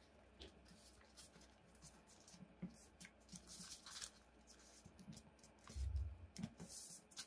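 Origami paper rustling and crinkling softly in short scrapes and ticks as fingers pinch and press small crimp folds into it. A dull low thump against the table about six seconds in.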